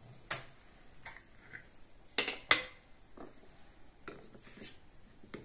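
A metal-lidded glass jar of olives in brine being opened and a wooden spoon knocking against the glass as olives are scooped out: a handful of sharp knocks and clinks, the loudest two close together about two seconds in.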